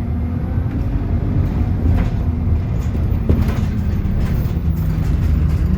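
Bus engine running steadily with a low rumble of road noise.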